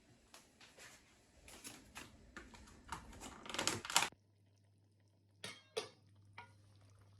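Kitchen clatter: utensils, dishes and containers knocking and scraping together in quick irregular clicks for about four seconds. It stops abruptly, leaving a low steady hum with two sharp clicks.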